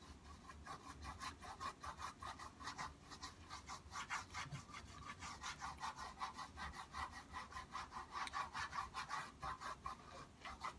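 Bristle paintbrush scrubbing oil paint onto a canvas panel in quick, short back-and-forth strokes, several a second, a soft rhythmic scratching.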